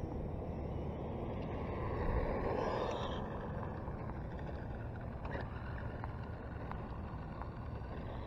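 Steady wind noise on the microphone, with a radio-controlled drift car's electric motor whining up in pitch and fading about two to three seconds in.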